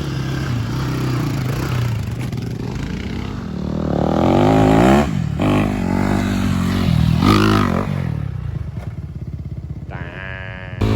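Yamaha Raptor 660R quad's single-cylinder four-stroke engine being revved hard, rising and falling in pitch again and again as it is thrown around in donuts. Near the end it drops to a low, slower putter.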